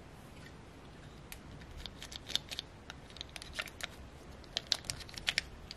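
Small plastic clicks and rattles from handling a small plastic doll while a stiff plastic dress is fitted onto it, sparse at first and then quick and irregular from about two seconds in.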